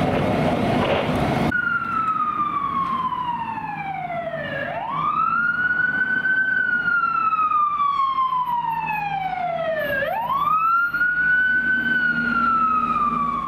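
A fire apparatus siren wailing in long cycles. Its pitch falls slowly, then sweeps quickly back up, twice, over a low engine hum. It comes in after about a second and a half of steady noisy rumble, which cuts off abruptly.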